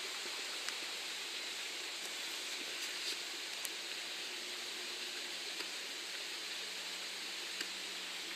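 Steady outdoor hiss of background ambience, strongest in the upper-middle range, with a few faint sharp clicks.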